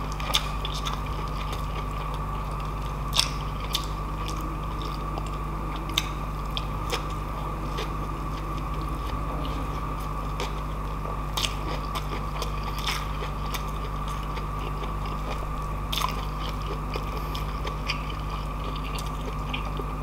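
Close-up mouth sounds of a person eating rice and pancit noodles by hand: chewing with scattered short smacks and clicks. A steady hum runs underneath.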